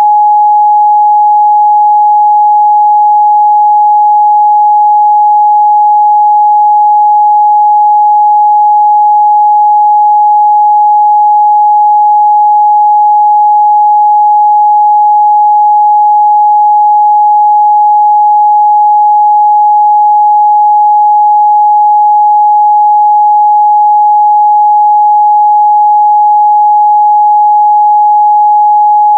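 A steady, loud 838 Hz sine test tone, one pure pitch held without change and with no overtones.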